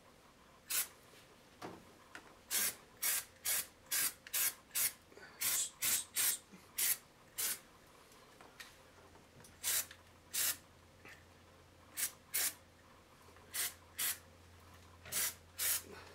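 Aerosol can of Rust-Oleum rubberized spray undercoating hissing in many short squirts, each a fraction of a second long, in quick runs separated by brief pauses.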